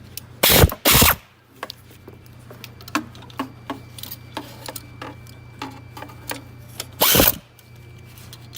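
Bolts on a car's power steering pump being tightened: three short bursts of a power tool, two close together near the start and one about seven seconds in, with a series of separate ratchet-like clicks between them.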